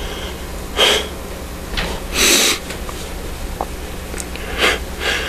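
A man breathing and sniffing close to a microphone during a pause in his speech: a short breath about a second in, a longer, louder breath a little after two seconds, and two short ones near the end. A steady low hum runs underneath.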